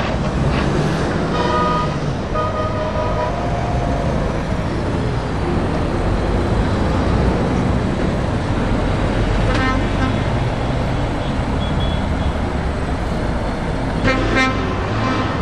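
Truck horns sounding over the steady diesel engine and tyre noise of passing lorries: two short blasts about a second and a half in, a brief toot near the middle and another blast near the end.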